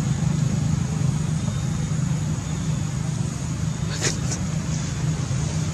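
A steady low hum, with one short crackle about four seconds in.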